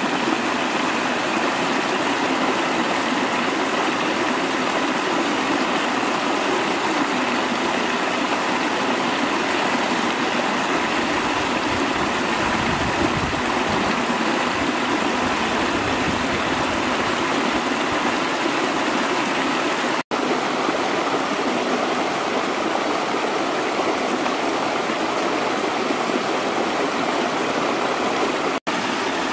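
Stream water rushing steadily over rocks, with a small cascade. The sound drops out for an instant twice, about two-thirds of the way through and near the end.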